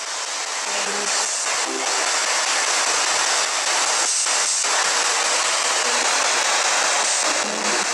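Ghost box (spirit box) sweeping radio stations: a steady wash of static hiss with a few brief, chopped fragments of sound breaking through, listened to for a spirit's answer to a question.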